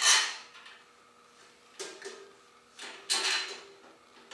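Steel parts of a welding cart's frame and cylinder rack clanking and scraping as bolts and washers are fitted by hand. There is a sharp clank right at the start, then two shorter clatters about two and three seconds in.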